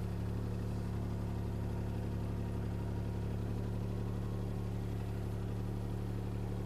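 CAT 303C CR mini excavator's diesel engine running at a steady, even pitch as the machine swings round on its turntable.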